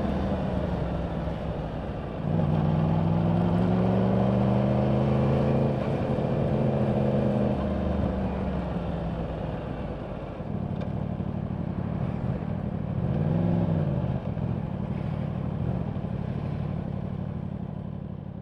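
Yamaha R1's crossplane inline-four engine through its stock exhaust, heard from the rider's seat on the move with wind noise. Throttle opens about two seconds in and the engine note rises and falls with road speed, then settles lower and steadier, with a brief rev blip and drop about three-quarters of the way through.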